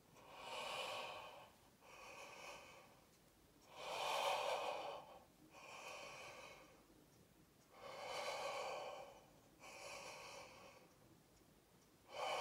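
A man breathing slowly and deeply through his open mouth, about one full breath every four seconds: a louder breath followed by a softer one, repeated three times.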